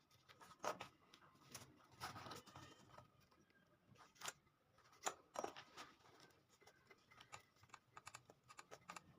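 Faint, irregular clicks, taps and short scrapes of hand work, with several sharper clicks standing out among quicker scratchy bits.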